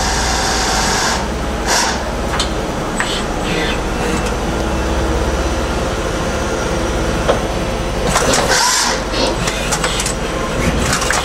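Tsugami BU26-SY Swiss-type CNC lathe running: a steady mechanical hum with a few short hissing bursts and a single sharp click.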